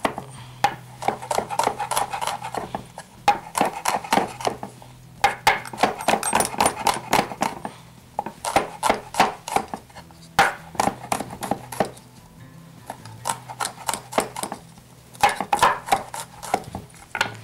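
Kitchen knife chopping garlic on a wooden cutting board: quick runs of sharp taps with short pauses between them.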